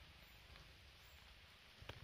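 Near silence: a faint low rumble, with a single short click near the end.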